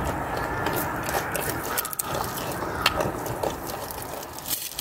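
Goats chewing and tearing leafy greens from a hand close up: scattered crunching clicks over a steady rustling noise.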